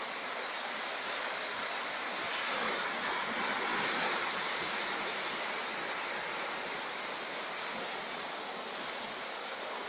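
Rough hurricane surf: waves breaking and washing up over a rocky beach in a steady rush of water, swelling slightly a few seconds in.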